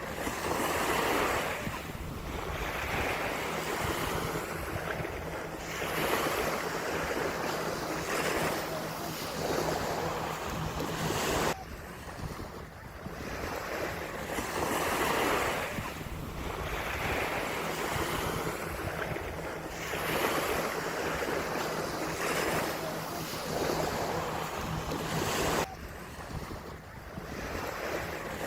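Ocean surf breaking and washing up a sandy beach, swelling and ebbing every couple of seconds, with a low rumble of wind on the microphone underneath.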